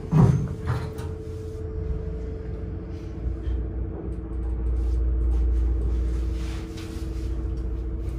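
Inside a Dover hydraulic elevator car: a heavy clunk of the car's mechanism, a smaller knock just after it, then a low rumble of the car travelling that swells and eases over a few seconds, over a steady hum.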